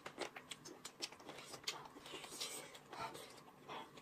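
Faint eating sounds: quiet chewing and small scattered clicks of chopsticks.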